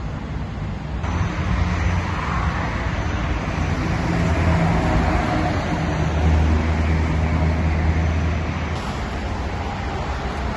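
Steady low rumble of engines and traffic-like noise, stepping up abruptly about a second in and shifting again near the end.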